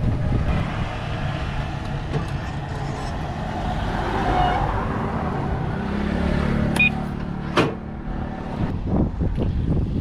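Riding an open-sided NWOW trike: wind on the microphone and road noise rumble steadily. A low hum runs for about a second and a half past the six-second mark, and two sharp clicks come near the seventh and eighth seconds.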